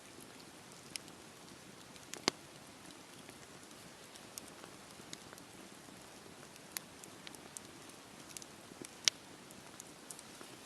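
Campfire burning: soft hiss of the flames with scattered sharp crackles and pops of the wood, two of them louder, about two seconds in and about nine seconds in.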